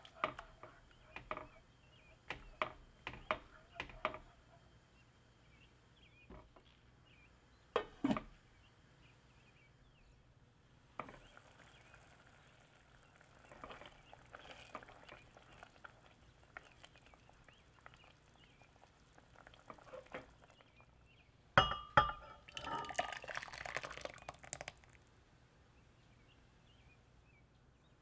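Silicone spatula stirring tomato sauce in a stainless steel saucepan: scattered taps and scrapes against the pan in the first few seconds and again about eight seconds in, then soft wet sloshing of the sauce, with a louder spell of clinks and liquid sounds about three-quarters of the way through.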